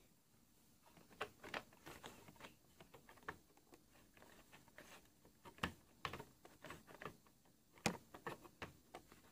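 Faint, irregular clicks and taps of a model train locomotive being handled and set onto the rails of the track, with a couple of sharper clicks about five and a half and eight seconds in.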